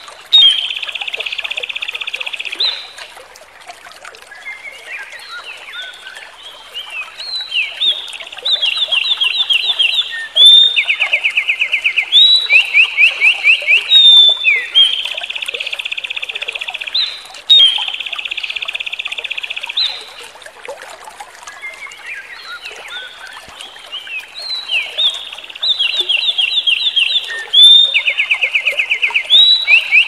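A small songbird singing a long, fast song of buzzy trills and runs of rapidly repeated notes. It drops to softer twittering about three seconds in and again around twenty seconds in, then starts up again.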